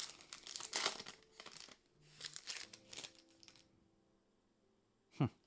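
Hockey trading card pack wrapper being torn open and crinkled by hand, in irregular bursts for about three and a half seconds. Near the end comes one short, loud sound that drops sharply in pitch.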